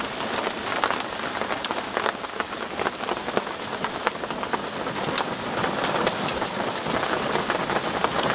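Hail mixed with rain coming down hard: a dense, steady hiss of rain, with many sharp ticks of hailstones striking the ground and the van.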